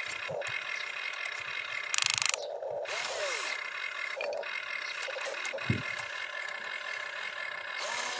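Electric motors of a radio-controlled model excavator whining as the boom, arm and bucket move, rising and falling in pitch. A short, louder buzz comes about two seconds in, and a single knock near six seconds.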